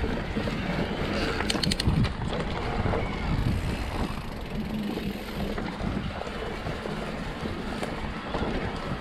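Mountain bike riding fast over a rough dirt singletrack: tyres rumbling over the ground and the bike rattling over bumps, with wind buffeting the camera microphone. A quick run of sharp clicks about a second and a half in.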